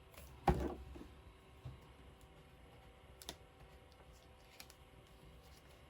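A soft thump on a tabletop about half a second in, then a sharp click a little past three seconds and a few light ticks: paper and scrapbooking supplies being pressed down and handled on a desk.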